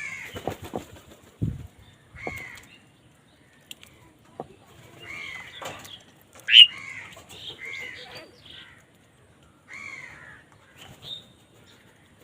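Crows cawing, repeated short harsh caws a second or two apart, the loudest about six and a half seconds in. A few low thumps and flutters come about a second in.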